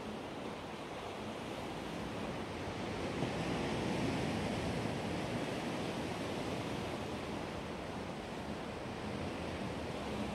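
Sea waves: a steady wash of surf that swells about three seconds in and then eases back.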